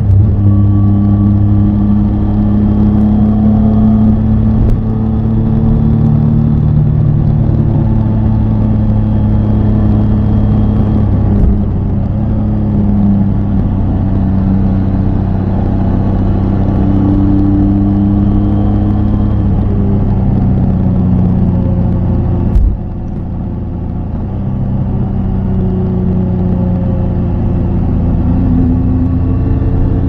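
Triumph Tiger 800 XCA's inline three-cylinder engine running under way, its pitch rising and falling gently with the throttle. About three-quarters of the way in the sound suddenly drops in level, then builds back up over a few seconds.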